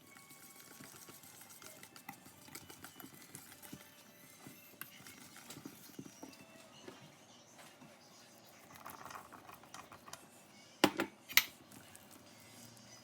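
Kitchen utensils and dishes being handled: a run of light taps and scrapes, then two sharp knocks about half a second apart near the end.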